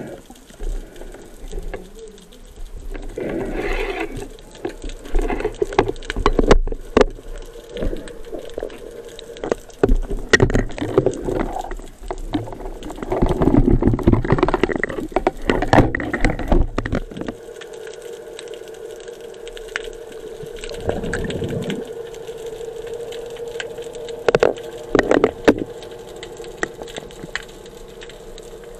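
Underwater sound: bursts of bubbling, gurgling water with scattered clicks and knocks from handling the speargun, and a steady hum through the second half.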